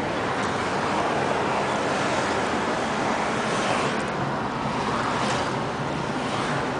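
Steady road noise of a moving car heard from inside the cabin: tyre and wind noise with the engine underneath, holding an even level.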